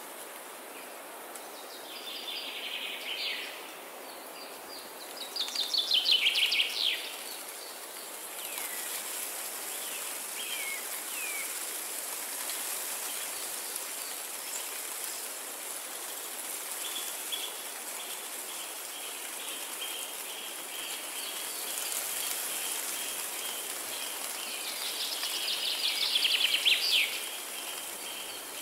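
Wind moving through forest trees as a steady rushing hiss, with songbirds singing over it: trilled phrases about two, six and twenty-six seconds in, the last the loudest, plus short down-slurred calls and a fast run of repeated notes in the second half.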